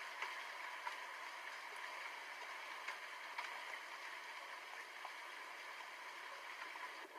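Steady rain falling, an even hiss with a few sharp drop ticks scattered through it.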